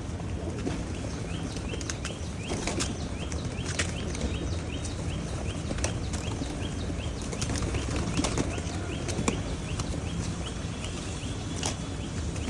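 A flock of pigeons feeding: wings flap and many sharp taps come from pecking. A short, high chirp repeats a couple of times a second through most of it.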